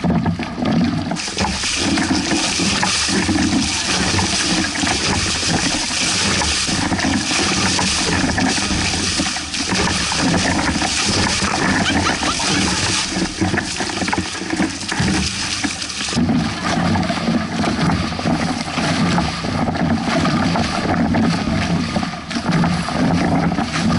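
Water splashing and rushing along a Hobie 16 catamaran's hull in choppy waves, with wind on the microphone. A bright hiss rides over it from about a second in and drops away about two-thirds of the way through.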